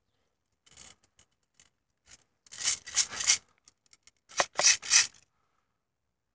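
Stock hi-cap airsoft magazine of an ICS MP5A4 being shaken, the BBs inside rattling in a few short bursts, the later ones louder. The shaking is done to settle the BBs and stop the magazine's rattle before firing.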